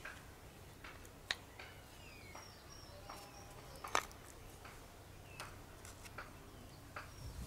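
Light metallic clicks and taps of gears and shafts being handled and seated into the aluminium housing of a John Deere JS63C self-drive gearbox, a few sharp ones at irregular intervals, the loudest about a second in and about four seconds in. Faint bird chirps sound in the background.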